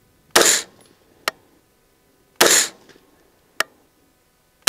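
AR-15 rifle firing 5.56 mm rounds: three single shots about two seconds apart, the last right at the end. A fainter sharp click follows about a second after each of the first two shots.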